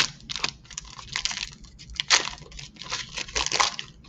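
Foil wrapper of a trading card pack being torn open and crinkled in the hands, in irregular crackling bursts, loudest about two seconds in and again near the end.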